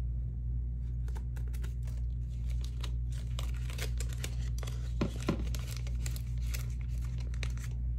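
Paper bills and cash envelopes being handled, with irregular crinkling and rustling as the bills are slid into the envelopes. There are two soft knocks about five seconds in.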